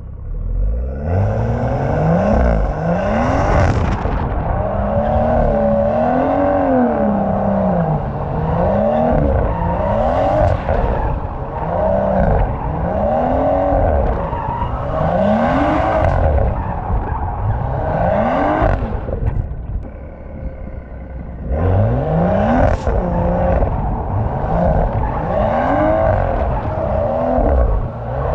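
BMW M240i's turbocharged straight-six revving hard and dropping back, again and again about every two seconds, with a wavering squeal above it: typical of the car being slid on its worn tyres.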